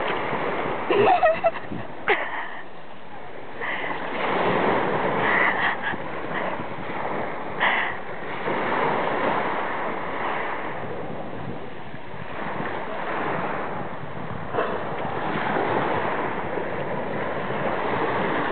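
Surf washing onto a pebble shore in slow swells. A short loud noise comes about a second in, and a few sharp clicks follow later.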